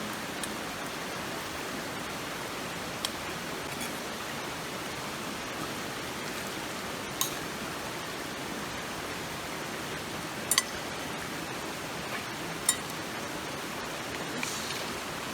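Gorge river flowing steadily, an even rush of water, with a handful of short sharp clicks now and then, one of them a quick double click.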